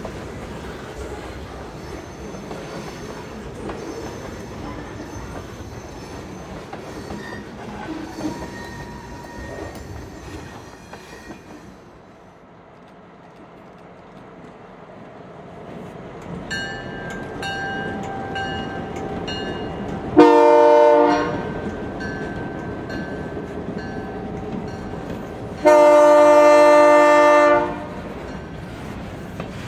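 Diesel freight locomotive air horn: a short loud blast about twenty seconds in and a longer blast near the end, each a chord of several notes, with fainter horn notes just before. Underneath is the steady rumble of the passing train.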